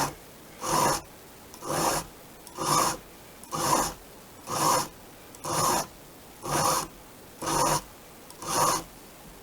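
Hand file rasping across a chainsaw chain's cutter tooth, sharpening it in steady even strokes about once a second, nine or so in a row.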